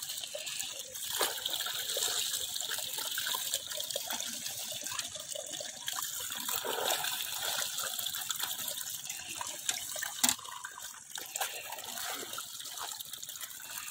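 Water running and gushing into a woven basket fish trap, with splashing as a plastic sieve-basket is dipped in to scoop out small fish. A single sharp knock about ten seconds in.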